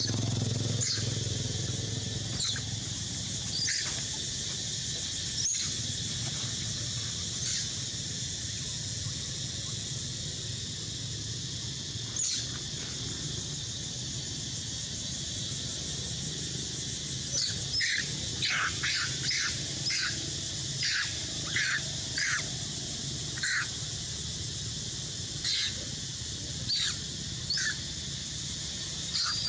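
Short, high-pitched macaque squeals from a monkey pinned and mounted by a larger male. A few single squeals come early, then a quick run of them, about two a second, around two-thirds of the way through, over a steady high hiss.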